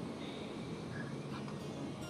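Faint outdoor background with a couple of light clinks about a second in, as an MSR camping kettle is lifted off a liquid-fuel camp stove.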